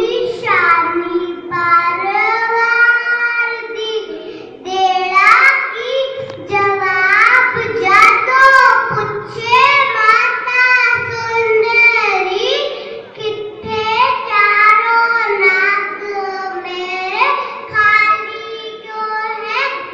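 A young girl's high voice chanting a poem in a sung style into a microphone, with long held notes and short breaths between lines.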